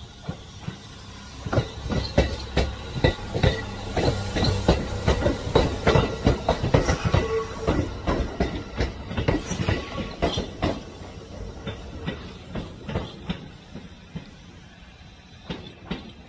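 Train wheels clattering over rail joints: a fast, irregular run of clacks over a low rumble that thins out over the last few seconds.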